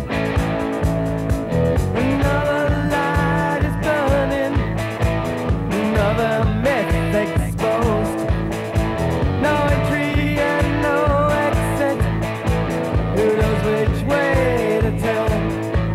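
Late-1970s rock band playing a song: electric guitars, bass guitar and drums with a steady beat, and a male lead vocal.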